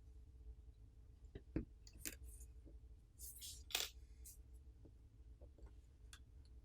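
Faint light clicks and scrapes of a SIM ejector pin pushed into a Samsung Galaxy S23 FE's SIM tray and the tray being drawn out: a few scattered ticks, then a small cluster of louder clicks about halfway through.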